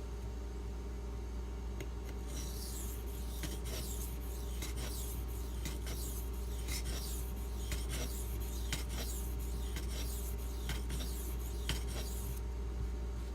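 Spyderco Manix 2 blade in Maxamet steel being stroked across a silicon carbide sharpening stone: a run of quick rasping strokes starts about two seconds in and stops near the end. The strokes are working an uneven bevel down so that the stone reaches the whole edge. A steady low hum runs underneath.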